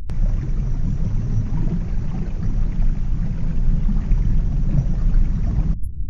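Underwater ambience: a steady rushing water hiss over a deep rumble. The hiss cuts off suddenly near the end, leaving only a muffled low rumble.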